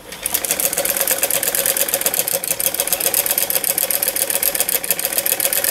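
Sewing machine stitching a seam at a steady speed: a fast, even clatter of the needle with a steady hum underneath, starting just after the beginning.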